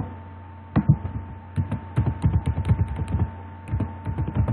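Typing on a computer keyboard: a fast, irregular run of key clicks starting about a second in, as numbers are entered. A steady hum runs underneath.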